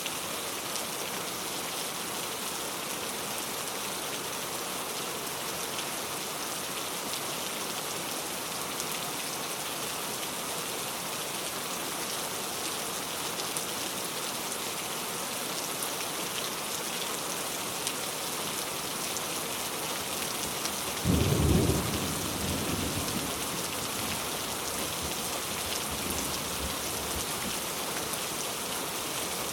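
Heavy rain falling steadily, with one loud clap of thunder about two-thirds of the way in that rumbles off over a few seconds.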